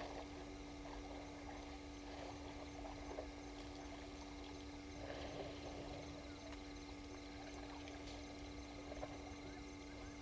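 A herd of African elephants drinking at a waterhole: faint, irregular splashing and sloshing of water, over a steady low hum.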